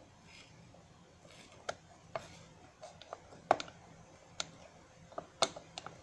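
Hand-operated food chopper working on chopped apple in its glass jar: a string of irregular sharp plastic clicks and knocks from the lid mechanism, the loudest about three and a half seconds in, with a quick cluster near the end.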